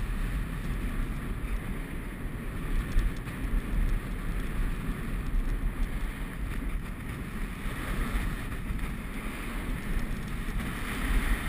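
Wind buffeting a head-mounted action camera's microphone during a downhill ski run, a steady rumbling rush that swells slightly near the end, mixed with the hiss of skis sliding on snow.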